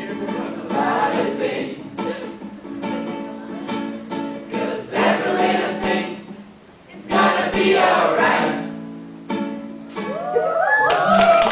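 Ukulele strumming chords while a group of voices sings along. Near the end the voices swoop up and down.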